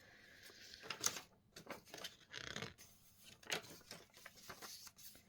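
Soft, intermittent paper rustles and light taps as a handmade junk journal's pages and tags are handled and turned.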